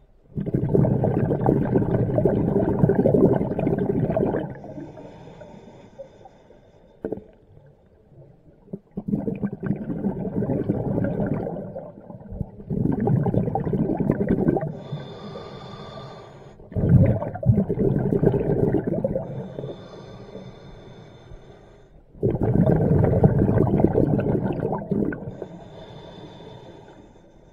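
Scuba regulator breathing underwater: about five long exhalations in bubbling rushes, a few seconds apart, with quieter inhalations through the regulator between them.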